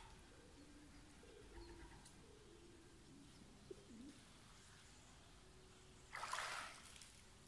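Near silence by a river, with faint low animal calls in the first few seconds, then a short splash of water about six seconds in as the fishing magnet or its rope strikes the river.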